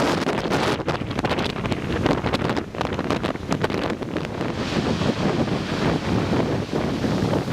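Strong wind buffeting the microphone in irregular gusts, over the steady rush of ocean surf.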